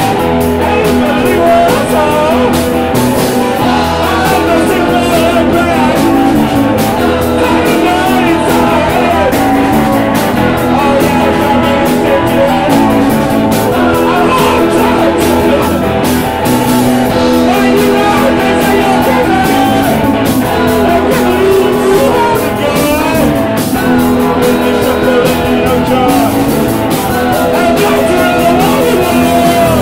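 Live punk rock band playing loud and without a break: electric guitars and a drum kit with a singer's voice over them.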